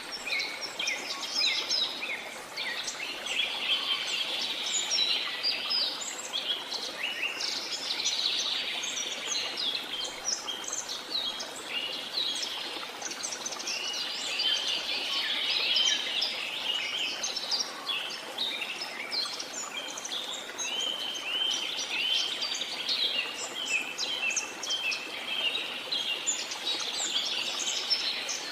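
A dense chorus of many birds chirping and twittering over a steady rush of water from a jungle waterfall.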